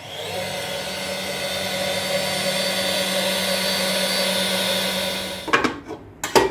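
Electric stand mixer running steadily, its beater stirring a thin yeast batter of flour, milk, sugar and yeast in a stainless steel bowl. It is switched off about five and a half seconds in, and a few knocks follow as the metal bowl is handled.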